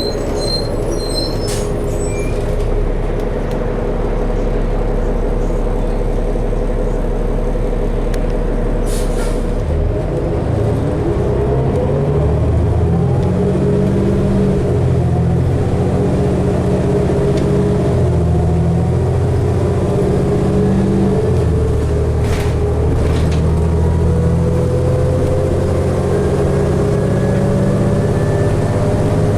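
Inside a 2012 New Flyer D60LFR articulated diesel bus: the engine hums steadily, then from about ten seconds in the engine note rises and steps up and down in pitch as the bus pulls away, with a whine climbing steadily near the end. A few short clicks and knocks come from the cabin.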